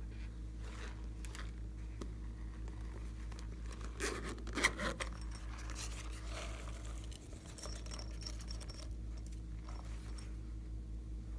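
Hands lifting and handling a red flower-shaped squishy toy: soft rubbing and crinkling, loudest in a short burst about four to five seconds in. A steady low electrical hum runs underneath.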